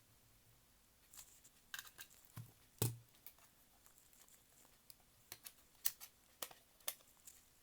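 Small plastic parts of a cassette player's casing being handled and fitted: a dull knock a little under three seconds in, then a handful of sharp, separate clicks.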